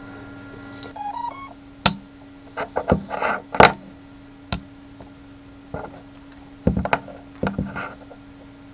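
Hands handling wires and small parts on a drone frame: scattered sharp clicks and short rustles. A brief run of quick electronic beeps comes about a second in, and a faint steady hum runs underneath.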